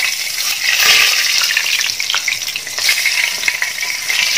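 Hot frying oil sizzling steadily in a large metal pan as a metal ladle stirs through it and scoops some of the oil out.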